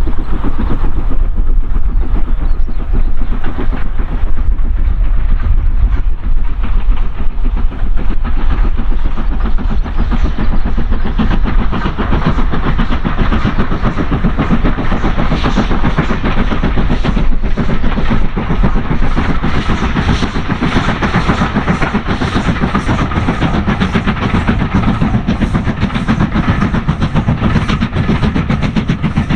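Steam-hauled train passing close by, its coaches' wheels rumbling and clicking over rail joints, with the clicks falling into a regular rhythm in the second half.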